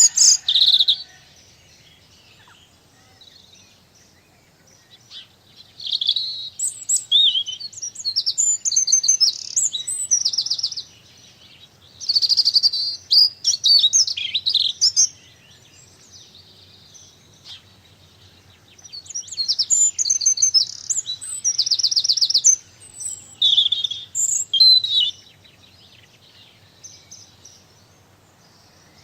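Garden songbirds singing in bursts of high, rapid trills and chirps, with gaps of a few seconds between phrases.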